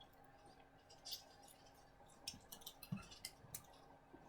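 Near silence with faint, scattered small clicks and a soft thump from someone eating: mouth clicks and food being handled, most of them bunched a little past the middle.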